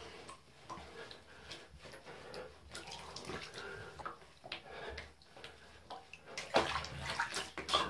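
Water splashing and sloshing in a shallow bath as hands rub a wet cat's fur, in short irregular splashes, busier and louder in the last second or so.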